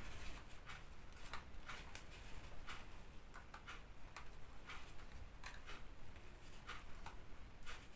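Quiet, irregular small clicks and paper rustles of hands handling instruction leaflets and a compact camcorder.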